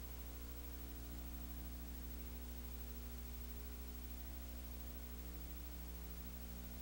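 Steady electrical hum with a ladder of overtones under constant hiss, unchanging throughout. No game sound, crowd or voice can be made out.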